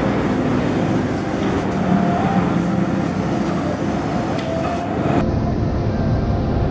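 Compressed-air paint spray gun hissing steadily, with the air compressor running beneath it. The sound changes abruptly about five seconds in.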